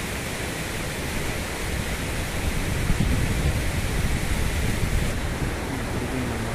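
Steady rushing noise of flowing river water, with wind gusting on the microphone.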